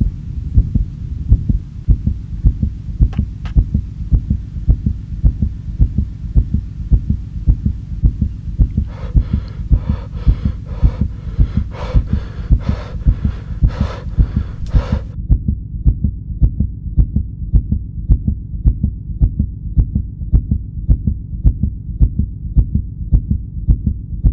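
A slow, steady heartbeat sound effect of low thumps, a little over one a second. About nine seconds in, a rougher, higher layer joins for several seconds; after it stops only the dull, muffled thumps remain.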